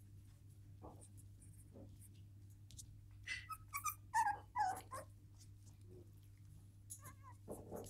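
West Highland White Terrier puppies giving a run of short, high-pitched cries between about three and five seconds in, with a few softer ones near the end.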